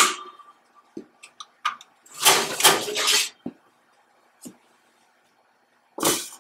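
Metal electrostatic collection cell of a Mistbuster 850 electrostatic precipitator being handled and slid out of its cabinet rails: a sharp metallic clank with a brief ring at the start, a few light clicks, then about a second of metal scraping as the cell slides out. A short clunk near the end as it is set down.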